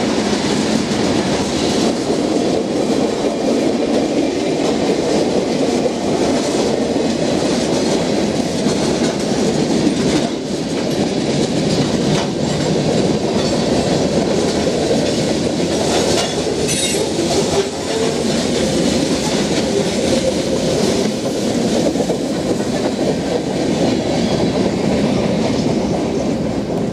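Freight train cars rolling past: steady rolling noise of steel wheels on the rails, with scattered clicks of the wheels.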